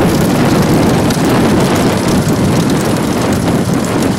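Loud, steady rumble of vehicles running alongside a galloping bullock racing cart.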